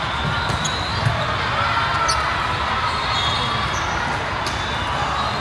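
Volleyballs bouncing on the floor and being hit in a busy gymnasium, over a steady din from the hall.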